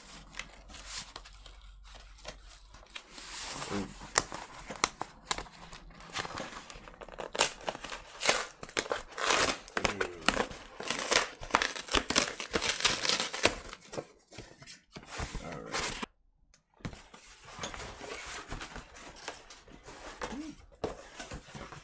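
Cardboard mailer being torn open by hand: irregular ripping and crinkling of cardboard and paper, busiest from about six to fourteen seconds in, with a brief silent break a couple of seconds later.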